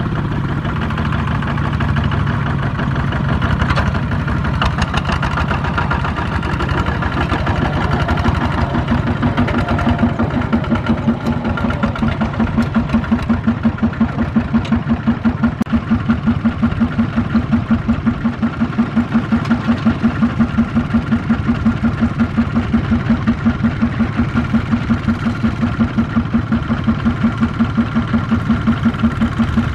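Two-wheel walking tractor's single-cylinder diesel engine running as it pulls a loaded trailer. From about nine seconds in it settles into a loud, even chugging beat.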